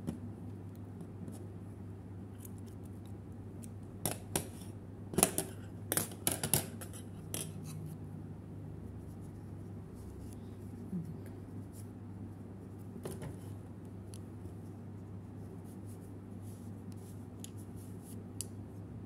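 Scissors cutting crochet yarn: sharp snips and clicks of the blades, clustered about four to seven seconds in, with a few fainter ticks before and after.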